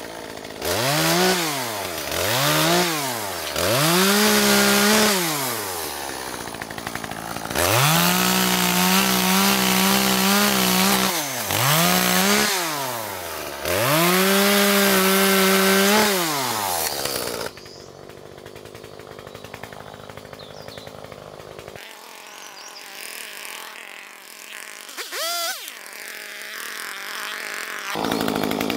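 Two-stroke chainsaw revved up and down several times, then held at high revs in long stretches as it cuts through a fallen log. About two-thirds of the way through, the sound drops suddenly to a much quieter level.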